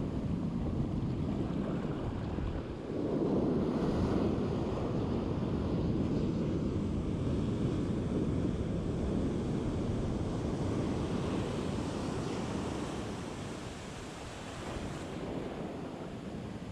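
Surf breaking and washing up a sandy beach, with wind buffeting the microphone. The rush swells about three seconds in and eases off near the end.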